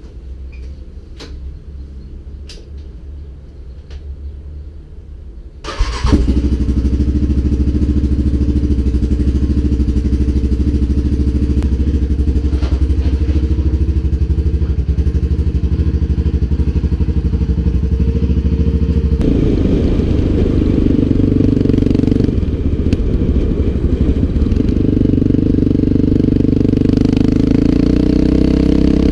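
Yamaha Raptor 700R quad's single-cylinder four-stroke engine starting abruptly about six seconds in after a few clicks, then idling steadily. From about twenty seconds in it revs unevenly and runs under throttle as the quad pulls away, with a brief drop near twenty-three seconds.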